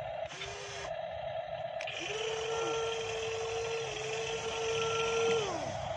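Electric drive motors of a Kobelco SK200 RC model excavator whining as it drives on its tracks: a short run well under a second long, then a longer steady run from about two seconds in that winds down in pitch as the motors stop.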